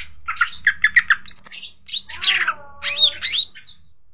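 A green leafbird (cucak ijo) sings in full, varied song: a quick run of about six short chirps, a rising whistle, then a loud harsh squawk and a few looping whistled notes, stopping shortly before the end.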